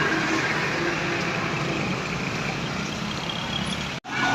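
Roadside traffic noise: a bus running past with a steady engine and road noise. The sound cuts out for an instant near the end.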